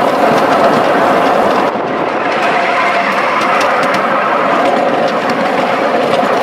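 Ride-on miniature railway train running along its track, with a steady rumble of wheels on rail and faint scattered clicks. The sound shifts briefly about two seconds in.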